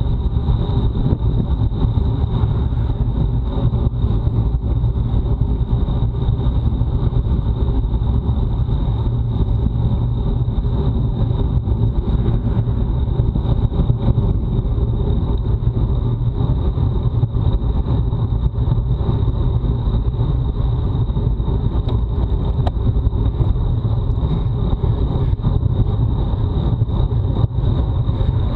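Wind rushing over an action camera's microphone on a bicycle ridden at speed, a steady loud low rumble, with a thin steady high tone running under it.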